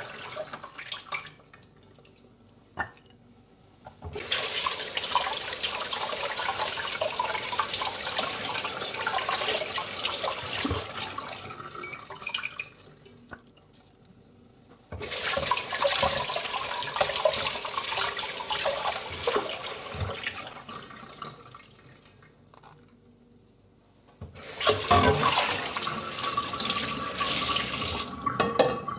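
Kitchen tap running into a stainless steel sink in three spells with quiet gaps between, as the water is turned on and off. The water splashes over raw beef tongues and then over a ceramic plate as they are rinsed.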